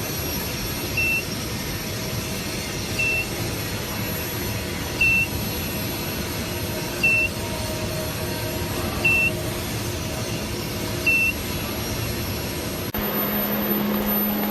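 A short, high electronic beep repeating every two seconds over steady machinery noise. Near the end the noise gives way to a steady low hum.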